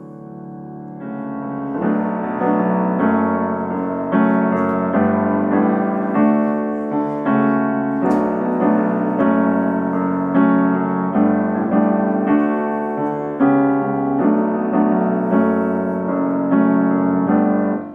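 Grand piano playing a passage of repeated chords: it swells in softly over the first couple of seconds, then chords are struck about once or twice a second at an even level, and it stops abruptly near the end.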